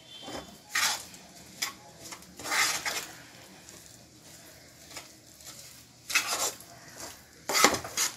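A steel spoon scraping and knocking against a non-stick kadai while a thick moong dal paste with powdered sugar is stirred. The strokes come irregularly, the louder ones about a second in, near three seconds and toward the end.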